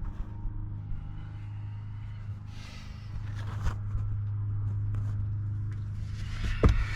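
Rustling and handling noises from working on car interior parts, over a steady low hum, with a single sharp knock near the end.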